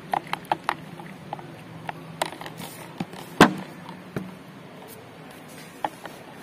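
A stick stirring liquid in a plastic jug, knocking against the jug's sides in irregular sharp clicks, the loudest about three and a half seconds in, as isopropyl alcohol is mixed into a glass-cleaner solution.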